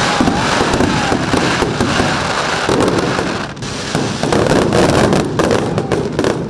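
Fireworks display going off in quick succession: a dense run of bangs and crackling, easing briefly about three and a half seconds in before picking up again.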